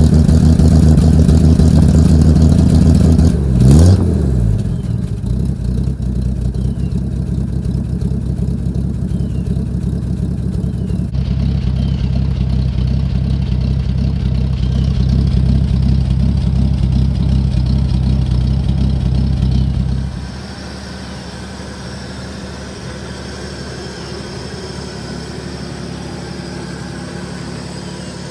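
1974 Ford F-250's 300 cubic-inch (4.9 L) inline-six idling while still cold, a steady low exhaust sound heard close at the tailpipe, with one brief rev about four seconds in. At about twenty seconds it drops in level and loses its low end, now heard from the engine bay.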